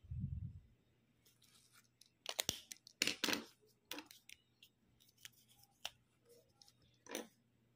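Preppy fountain pen nib scratching across planner paper in a series of short, quick strokes as tasks are ticked and crossed out, the busiest strokes a couple of seconds in. A soft low thump right at the start.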